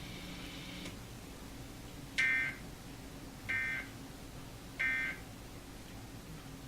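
Emergency Alert System end-of-message signal: three short bursts of the digital SAME data tones, each about a third of a second long and spaced about 1.3 seconds apart, marking the end of the alert. A faint steady hum lies underneath.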